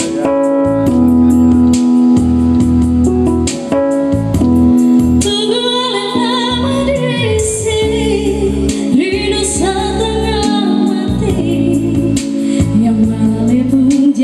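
Electronic keyboard accompaniment playing held chords, joined about five seconds in by a woman singing a slow pop ballad with vibrato over the keyboard.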